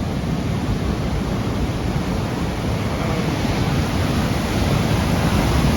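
Heavy high-tide ocean surf breaking and rushing ashore in a continuous wash, a little louder near the end.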